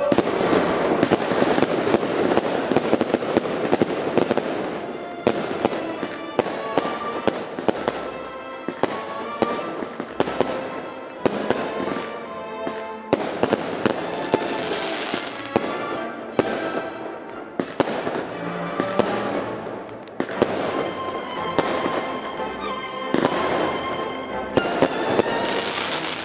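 Aerial fireworks going off in a rapid, continuous string: many bangs in quick succession mixed with crackling, heaviest at the start, near the middle and near the end.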